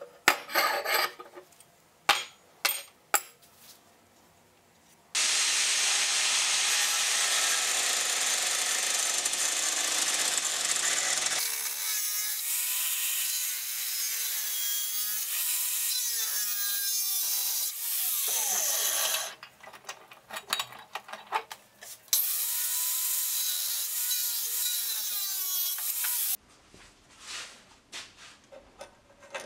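Angle grinder with a cutting disc cutting steel square tubing, in three runs of several seconds. Its whine wavers up and down as the load changes. Short clinks and clatters of the steel pieces being handled come at the start, in a break between runs, and near the end.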